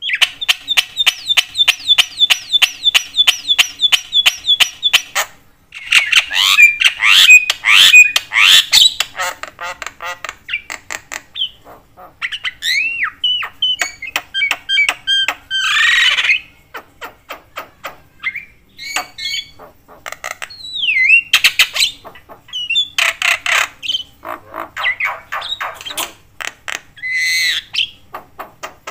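Javan myna calling: a fast run of repeated harsh notes, about four a second, for the first five seconds, then loud, varied chattering of whistles and squawks with short pauses.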